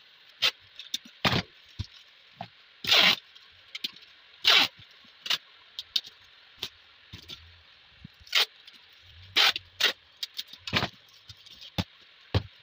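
Packing tape pulled off a handheld tape-gun dispenser in several short pulls, each a sudden ripping burst, with sharp knocks and taps as the parcel and dispenser are handled on the wooden table.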